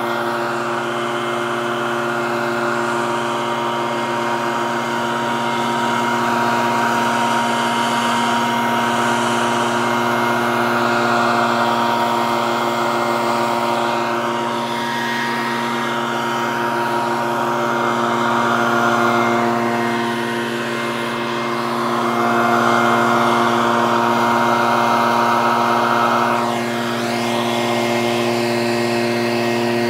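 Leaf blower running steadily, its rush of air swelling and easing every few seconds over a constant motor drone.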